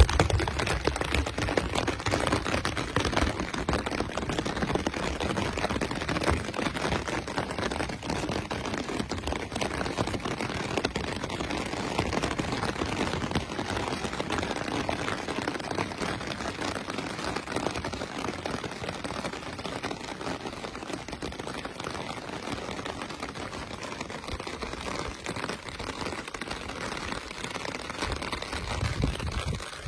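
Heavy rain falling on an open umbrella overhead: a dense, steady patter of drops hitting the canopy fabric.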